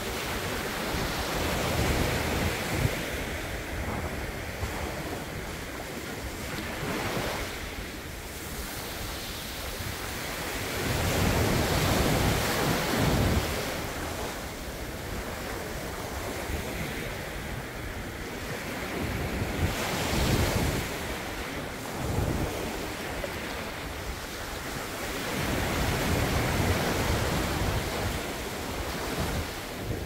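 Small sea waves breaking and washing up a sandy beach, the surf swelling and ebbing about four times.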